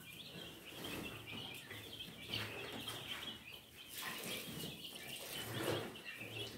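Flock of chickens in a pen, with a continuous high chatter of chirps.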